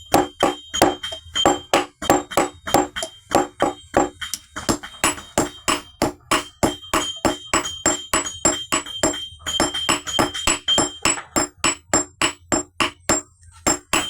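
Blacksmith's hammer striking steel on an anvil in a steady rhythm of about three blows a second, each blow followed by a high metallic ring, with brief pauses about four and a half, nine and a half and thirteen and a half seconds in.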